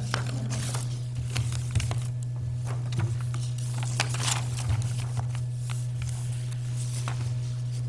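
Room tone: a steady low hum with scattered faint clicks and rustles.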